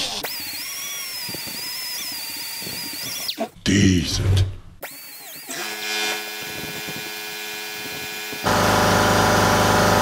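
Small handheld rotary power tool running, used to scrub and clean the inside of an electric golf-cart motor housing. It whirs faintly at first, then runs with a steady hum, and comes on much louder and steady about a second and a half before the end.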